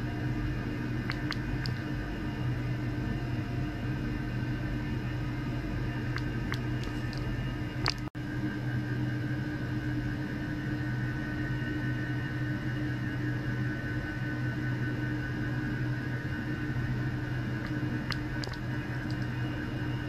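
Steady electrical hum with a higher whine over it and a few faint ticks, from bench electronics running; it drops out for an instant about eight seconds in.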